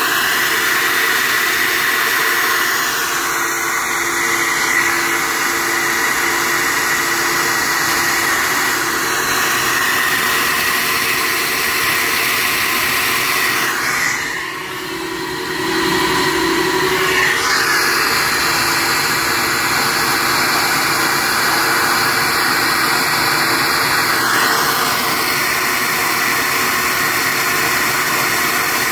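SuperFlow flowbench drawing air through a cylinder head port: a loud, steady rush of air with a thin whistle-like tone. It dips briefly about halfway through and changes in tone twice in the second half.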